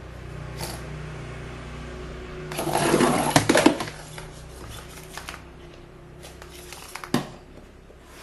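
A Sphero Mini robot ball's small drive motors hum steadily. About two and a half seconds in comes a loud second and a half of rattling and clicking, and a single sharp knock follows near the end.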